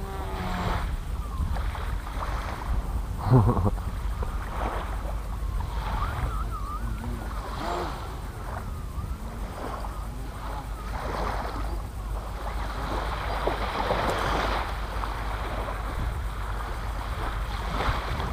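Wind buffeting the microphone, a steady low rumble, with a single knock about three and a half seconds in.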